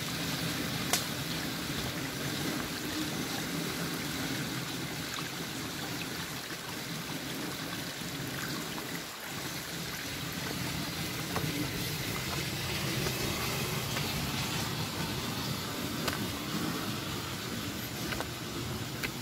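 Steady rush of flowing stream water, with a few sharp clicks.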